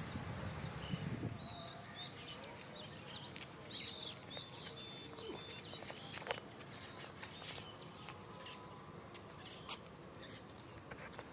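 Faint chirping of small birds, with a low rumble that fades out about a second in.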